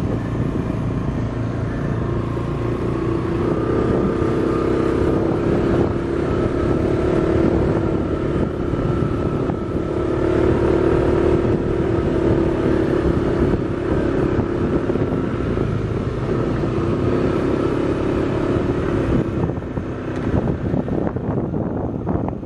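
A motor vehicle's engine running steadily, its pitch drifting slightly up and down.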